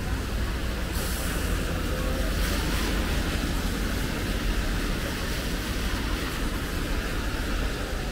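Traffic passing on a rain-wet street: car engines rumbling, with tyres hissing on the wet road from about a second in.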